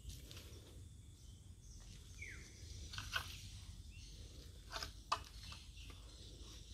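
Quiet outdoor ambience with a steady low rumble. A short falling chirp comes a little over two seconds in, and a few sharp clicks follow, the sharpest about five seconds in.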